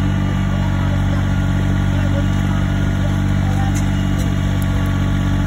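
Farm tractor engine running steadily at low speed while pulling a wagon, a low, even drone with no change in pitch.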